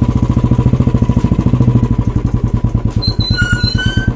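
Royal Enfield Bullet's single-cylinder four-stroke engine running under way, an even beat of roughly a dozen pulses a second. A few short high chirps sound near the end.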